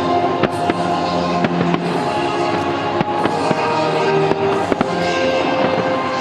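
Aerial fireworks bursting and crackling in quick, irregular cracks over a show's musical soundtrack.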